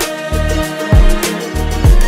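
Background music with a steady beat: deep bass drum hits that drop in pitch, about once a second, over held bass notes and a sustained melody.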